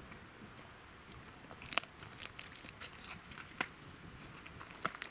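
Lionesses feeding on a carcass, chewing and crunching bone, heard as scattered sharp cracks at an irregular pace. The loudest crack comes a little under two seconds in.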